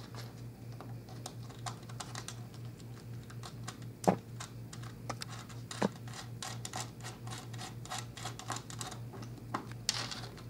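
Quick, irregular small clicks and taps from hands handling a copper ring lug, a nut and the plastic body of a high-amp circuit breaker, with long fingernails clicking against the parts. Two louder clicks come about four and six seconds in.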